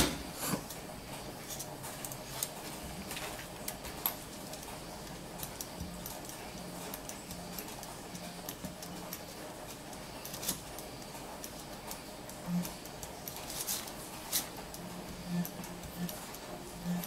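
Orange pistol-grip soldering gun being handled and worked over LED strip boards: a sharp click as it is picked up, then scattered light ticks and taps, and in the second half several short low buzzes as its trigger is pressed and the transformer hums.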